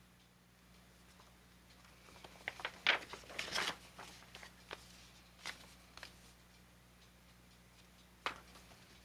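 A small metal hand tool being handled: a quick run of faint clicks and light knocks about three seconds in, then a few single clicks, over a steady low hum.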